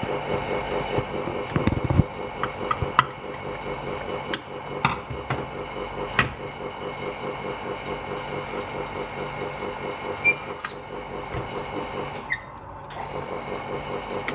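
A workshop machine, the polarizer-film laminating roller rig, runs with a steady, fast-pulsing hum. Scattered sharp clicks and knocks come over it as its roller parts are handled and adjusted, with a cluster in the first few seconds and another about ten seconds in.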